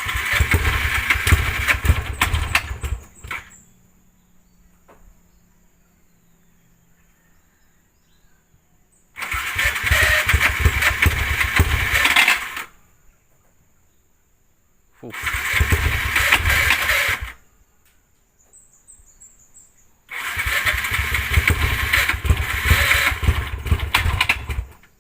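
Yamaha Y15ZR motorcycle engine run in four loud bursts of two to four seconds each, starting and stopping abruptly, with quiet gaps between.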